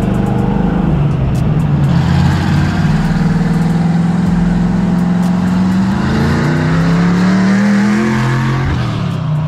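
Small-block Chevy V8 of a square-body Chevy C10 drift truck running under light throttle, its pitch climbing from about six seconds in as it accelerates, then easing off near the end.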